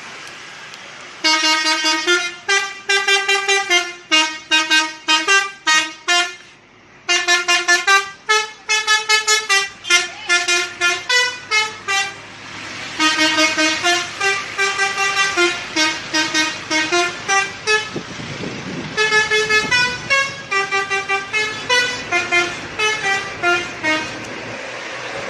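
Indonesian bus 'telolet' musical horn playing a quick tune of short honked notes that step up and down in pitch, a few notes a second. It starts about a second in and plays in several phrases with brief pauses between them.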